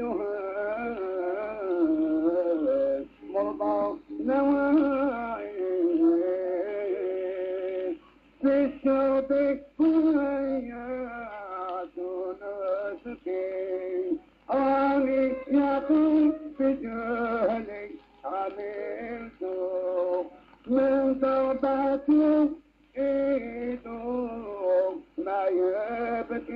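A man singing a slow, ornamented Arabic vocal line whose pitch bends and wavers, in phrases broken by short pauses.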